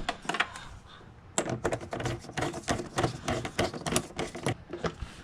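Rapid ratchet clicking as a stainless band clamp on the intake tube's rubber coupler is tightened, a few scattered clicks at first and then a dense run of quick clicks from about a second and a half in.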